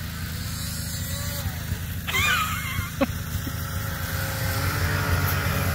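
A two-stroke snowmobile engine runs with a steady drone as the sled rides through deep snow. A brief wavering high sound comes about two seconds in, and a single sharp click about three seconds in.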